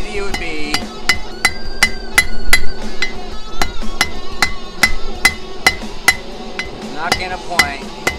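Hand hammer striking hot steel on an anvil in a steady rhythm, about three to four blows a second, each blow ringing off the anvil.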